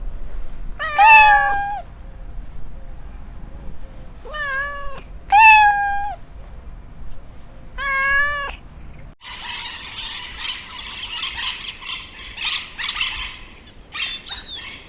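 A domestic cat meowing four times, each meow a drawn-out call that rises and falls. About nine seconds in it cuts to a dense, noisy chatter with short chirps.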